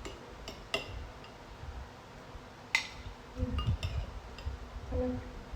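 Spoons and chopsticks clinking against bowls during a meal: a handful of light, scattered clinks, with the sharpest about three seconds in.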